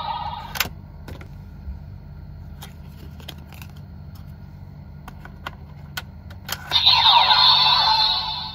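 Electronic sound effects from a Kamen Rider Gotchard Gotchardriver toy transformation belt. A sound effect cuts off with a click under a second in, and a few sharp plastic clicks follow as cards are handled. About seven seconds in, a loud new sound effect with sweeping tones starts.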